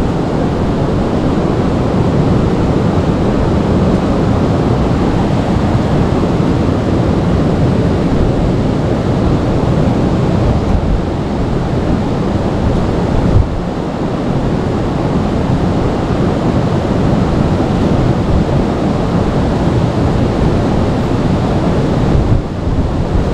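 River water rushing steadily, close to the camera, with a low rumble that may be partly wind on the microphone. There is a single brief bump about halfway through.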